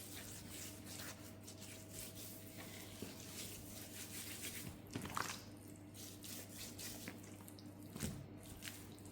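Faint rustling and crinkling of a wrap being folded around a seasoned raw beef rump cap by hand, with a sharper handling noise about five seconds in and another about eight seconds in.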